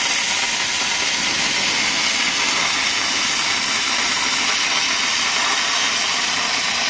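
A 20 kW laser cutter cutting 50 mm mild steel plate with oxygen assist gas: a loud, steady hiss of the oxygen jet and burning steel, mostly high-pitched.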